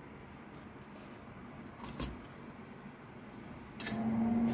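Faint clicks and taps from handling a PCB with a tacked-on connector, with one sharp click about two seconds in. Near the end a steady low hum starts.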